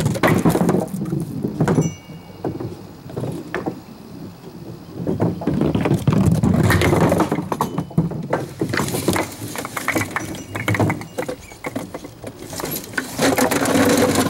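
A string pinsetter hauls small wooden bowling pins up by their strings. The pins clatter and knock against each other and scrape and thud across the wooden pin deck in uneven bursts, loudest about six seconds in and again near the end.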